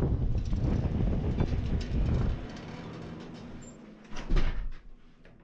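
Wind buffeting the microphone, which drops away about two and a half seconds in as a glass shop door is pulled open and stepped through. A single loud door thump comes just after four seconds.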